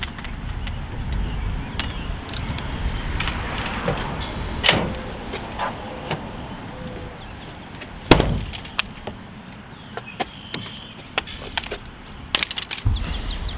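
Fishing gear being unloaded from the back of a pickup truck: rods and tackle clattering and clicking, with two loud thumps about four and a half and eight seconds in as the tailgate and the camper-shell hatch are shut. A quick run of light clicks comes near the end.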